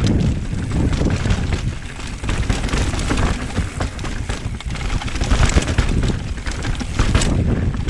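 Mountain bike descending a rough trail: wind rumbling on the microphone over tyre noise, with a rapid, irregular clatter of knocks and rattles from the bike over the rough ground.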